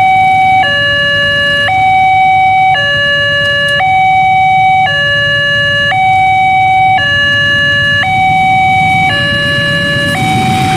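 Railway level-crossing warning alarm sounding a two-tone hi-lo pattern, switching between a higher and a lower tone about once a second to warn of an approaching train. Near the end, the noise of the arriving diesel train rises beneath it.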